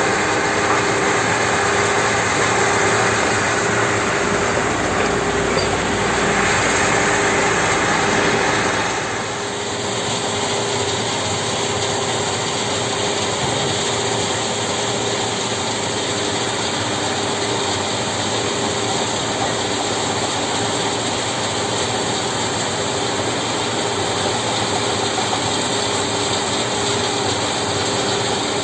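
Stone crusher plant running, a steady loud mechanical din. About nine seconds in, the sound changes to a Hyundai hydraulic excavator's diesel engine working as it loads a dump truck.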